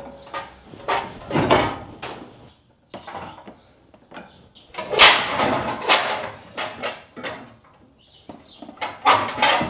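Irregular metal clanks and rattles from an engine hoist's chain and the hanging V8 being shifted in the engine bay, roughly one or two knocks a second with a short ringing tail. The loudest clank comes about five seconds in.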